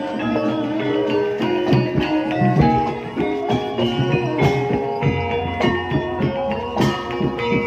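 Gamelan music accompanying an ebeg dance: ringing struck keyed instruments playing a running melody over frequent drum strokes.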